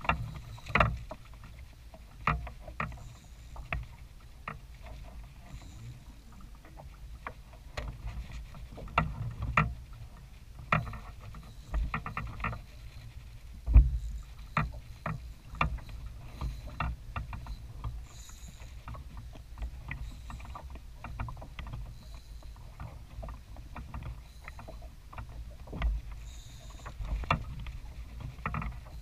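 Water lapping against a plastic kayak hull under a low steady rumble, with many irregular knocks and clicks from fishing gear handled on the kayak, the loudest knock about halfway through.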